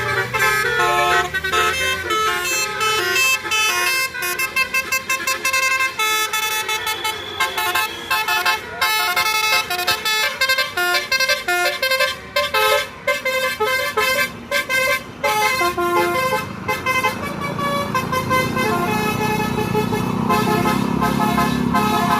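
Bus telolet horn (Basuri musical air horn) playing a fast melody of quickly changing notes. A bus engine grows louder near the end.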